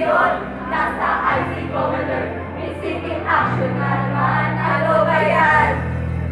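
A group of voices singing a jingle in Filipino together over a backing track, with a sustained bass note that changes pitch every two seconds or so.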